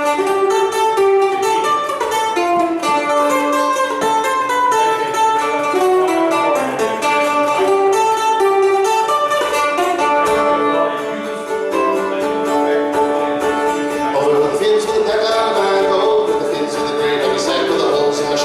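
Acoustic guitar playing an instrumental break of a folk song, a quick run of melody notes over chords, with no pause.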